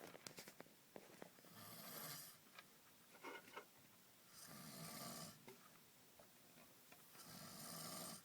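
A person snoring faintly: three drawn-out rasping snores, each about a second long, roughly three seconds apart.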